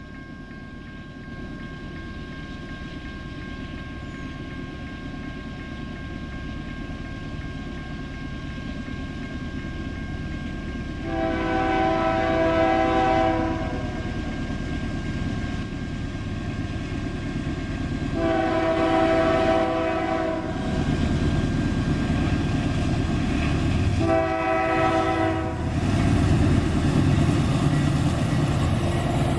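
Union Pacific diesel freight locomotive approaching, its rumble growing steadily louder, while its multi-chime air horn sounds two long blasts and a shorter one, the pattern blown for a grade crossing.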